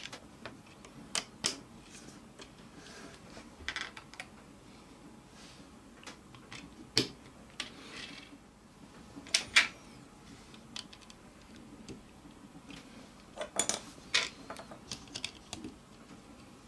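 Plastic building-brick pieces clicking and snapping together as they are fitted by hand: irregular sharp clicks with a few louder snaps, several in quick succession near the end.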